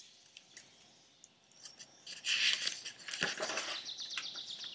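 Page of a hardcover picture book being turned: a papery rustle with a sharp flap about three seconds in, after a near-silent start.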